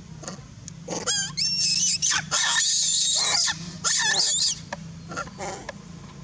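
Macaques giving a run of shrill, wavering screams for about three and a half seconds, starting about a second in, with a short break near the end.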